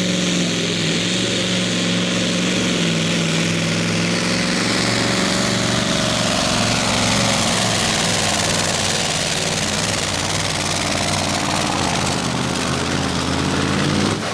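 Magirus Deutz pulling truck's engine running flat out under full load as it drags the weight-transfer sled down the track; a loud, steady note.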